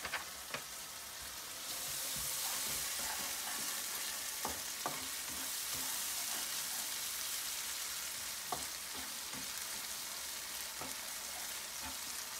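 Chopped tomato and spice paste frying in a pan on a gas stove: a steady sizzle that grows louder about two seconds in, with a few light clicks of a spatula stirring against the pan.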